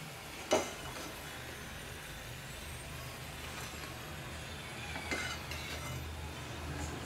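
A metal slotted spoon clinks as freshly fried masala potato fries are set down on a paper towel: one sharp knock about half a second in and a smaller one around five seconds, over a steady low background hum.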